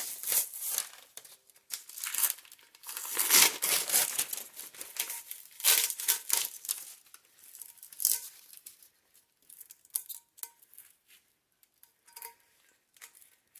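Crinkling and tearing of the wrapping layers as they are peeled off a freshly sublimated tumbler. It comes in repeated bursts over the first eight seconds or so, then thins to scattered small rustles and clicks.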